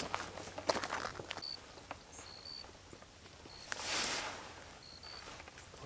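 Faint rustling and light clicks, as from someone moving in dry brush, with short high chirps sounding several times and a soft hiss swelling about four seconds in.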